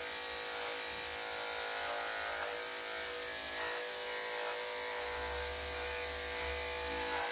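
Corded electric dog clippers with a #10 blade running with a steady buzz as they shave through a dog's body coat.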